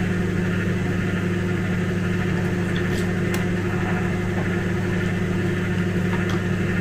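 A steady low hum, like an appliance or electrical hum, with a faint clink or two of a metal spoon against a ceramic bowl about three seconds in.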